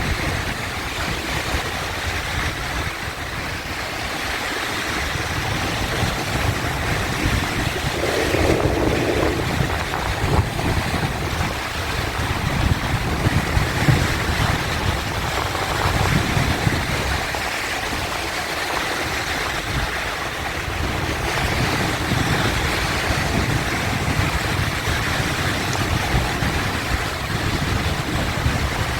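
Sea waves washing in continuously, a steady surf with a low, uneven rumble underneath and swells of loudness as waves break.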